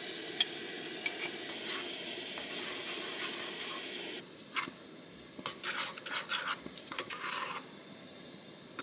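Steady hiss of a small camp stove burning under a pot. About four seconds in the hiss drops away, and a metal spoon clinks and scrapes against the cooking pot several times, with one sharp clink near the end.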